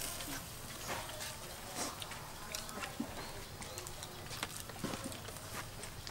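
Outdoor ambience with scattered light clicks and knocks and faint bird calls.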